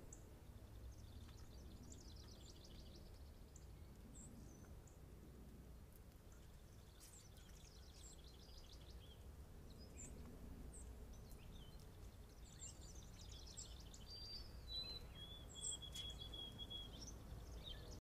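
Faint outdoor birdsong: three trilled song phrases several seconds apart with scattered short chirps, then a long held whistled note near the end, over a low steady background rumble.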